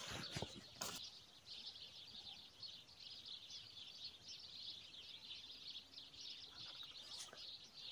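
Faint outdoor quiet filled with many small, high-pitched bird chirps, with a few soft knocks in the first second.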